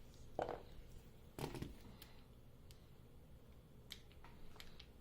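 Faint, scattered clicks and rustles of small tools and thin adhesive tape being handled while taping a phone frame; the louder ones come about half a second and a second and a half in.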